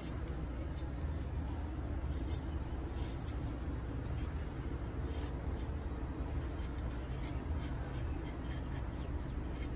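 A chef's knife paring the skin off a ginger root: short, irregular scraping strokes of the blade against the root. A steady low rumble runs underneath.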